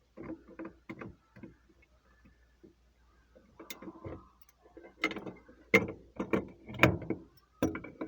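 Irregular clicks, clacks and rattles of hard objects being handled, coming in small clusters with quiet gaps between; the loudest knocks come a little past halfway.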